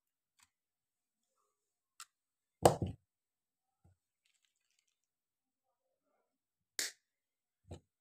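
Scattered clicks and knocks of a screwdriver and plastic hair-dryer parts being handled on a table. The loudest is a heavier knock just under three seconds in, with two sharper clicks near the end.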